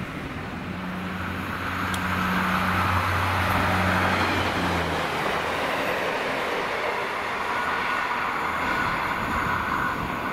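Diesel train passing: a steady low engine note sounds for the first half, over continuous rolling wheel-on-rail noise that carries on after the engine note fades.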